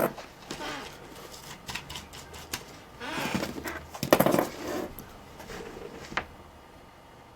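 Small clicks, taps and rustling of tools and wire being handled during soldering work on a laptop power-jack wire, with two louder scraping, rustling stretches about three and four seconds in and a sharp click near the end.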